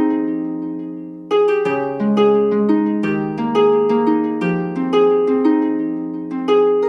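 Instrumental music: plucked, harp-like notes in a slow repeating pattern, each ringing and fading. One note is left to die away before the pattern resumes about a second in.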